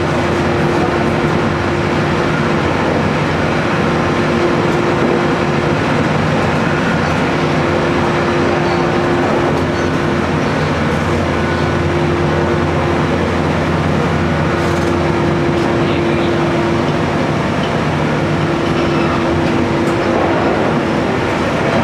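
Cabin of a JR Kyushu 817 series electric multiple unit running at speed: continuous wheel-on-rail running noise. Over it sits a steady hum from the Hitachi IGBT-VVVF traction drive and motors, which fades in and out at times.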